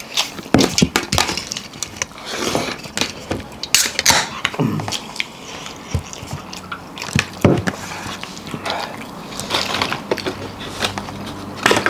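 Close-up eating sounds of a meal of rice with gundruk soup and pickles: chewing with many sharp clicks, and short hums about five and seven and a half seconds in.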